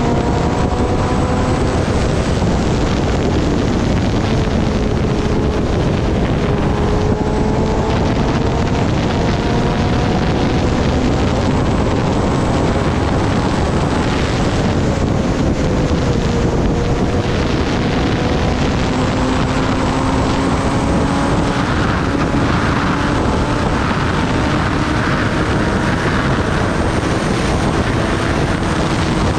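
Kawasaki Ninja ZX-10R inline-four engine running hard at high highway speed under heavy wind rush on the microphone. The engine note drifts slowly, dipping about halfway through and then climbing steadily through the second half.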